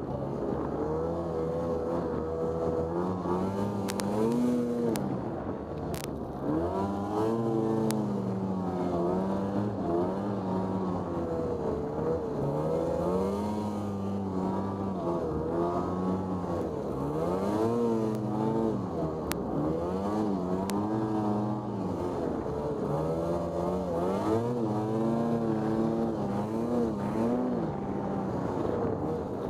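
Lynx Commander snowmobile engine revving up and down again and again as it ploughs through deep powder snow, the pitch swinging every second or two. A few sharp clicks come in the first eight seconds.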